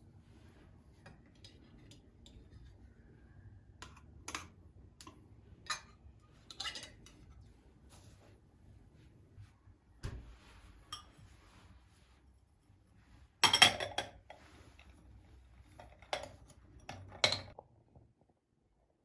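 Scattered light clinks and taps of small hard objects being handled, with a louder brief clatter about two-thirds through and two more clinks near the end, over a low steady room hum.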